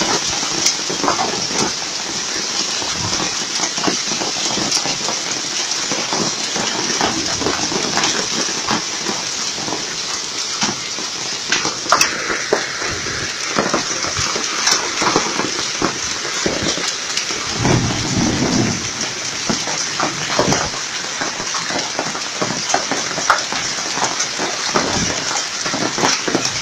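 Hail falling with heavy rain: a dense steady hiss of pelting rain, with frequent sharp cracks of individual hailstones striking.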